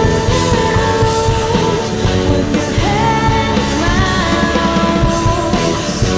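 Background rock music from a band, with a melody line over a steady beat.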